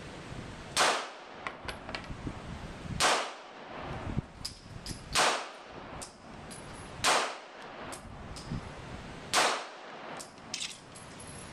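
Glock 17 9mm semi-automatic pistol firing five slow aimed shots, about two seconds apart. Light metallic clinks ring out between the shots.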